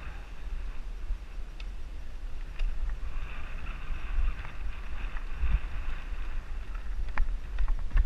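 Mountain bike riding fast down a dirt singletrack, picked up by a camera on the bike or rider. Wind buffets the microphone in a low, uneven rumble, the tyres hiss over the dirt, and a few sharp clicks and rattles come from the bike.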